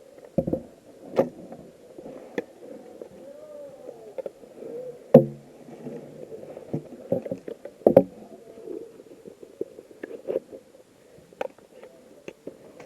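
Muffled rustling and shuffling of a player's gear, broken by about six sharp knocks; the loudest comes about five seconds in and another just before eight seconds.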